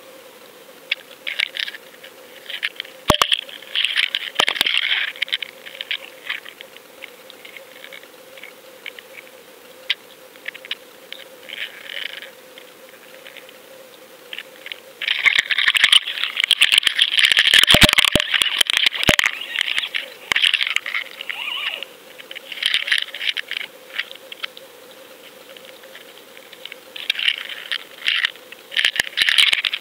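Irregular bursts of clicking and rattling heard underwater through a GoFish fishing camera's housing, loudest and longest about halfway through, over a faint steady hum.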